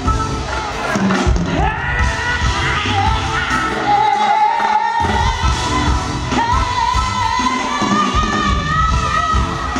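Live soul band playing, with a woman's lead vocal over it; from about two seconds in she holds long, wavering notes, stepping up in pitch near the end.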